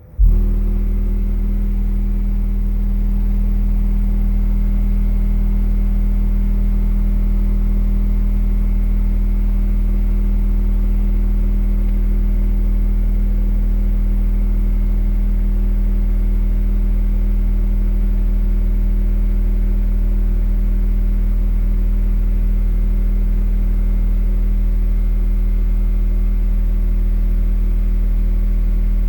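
Rockville Punisher subwoofer playing a single steady test tone of a little over 40 Hz at high power, during a one-minute continuous power test. The tone starts abruptly with a brief peak, then holds at an even, loud level.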